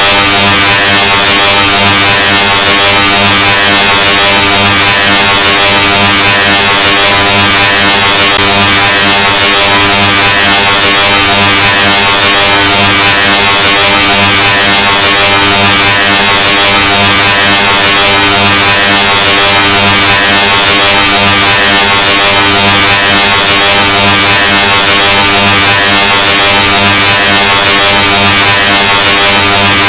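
A steady, extremely loud, heavily distorted buzzing tone with a low fundamental and a dense wash of harsh noise over it, unchanging throughout: a deliberately overdriven 'loudness' sound effect.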